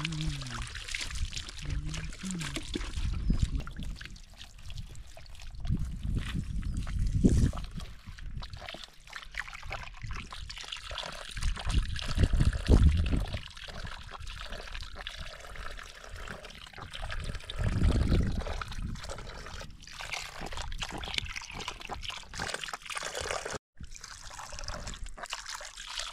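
Water trickling and splashing as hands wash things in a bucket and a small steel bowl of water, with a few low rumbles through it.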